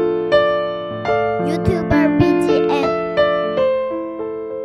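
Piano background music: a gentle melody of single notes and chords, each struck and left to ring and fade, one after another.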